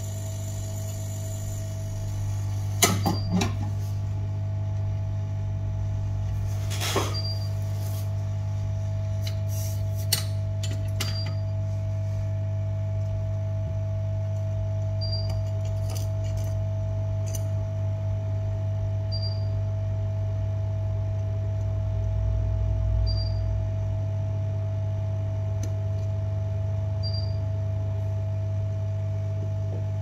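Steady electrical hum with a constant mid-pitched tone, like bench equipment running. A few sharp clicks and taps come in the first half, and a short faint high beep repeats about every four seconds.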